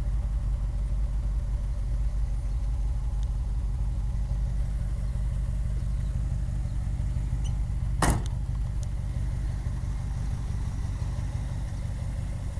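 1959 Ford Thunderbird's V8 engine idling steadily, with a single sharp knock about eight seconds in.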